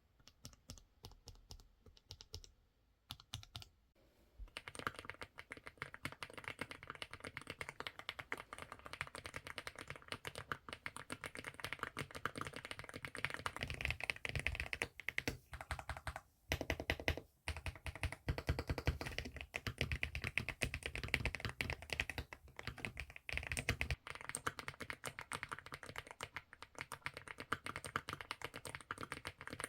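Typing on a NINJA87 mechanical keyboard with HMX Pado switches: a few scattered keystrokes at first, then fast, continuous keystroke clacking from about four seconds in, with a couple of brief pauses past the midpoint.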